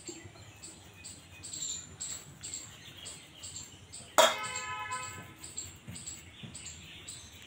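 Ripe mango being rubbed on a hand grater over a steel bowl, under a steady run of short, high bird chirps. About four seconds in, a louder pitched call rings out for about a second.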